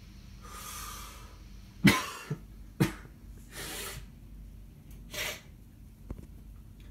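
A person coughing twice, about a second apart, near the middle, with softer breathy noises before and after.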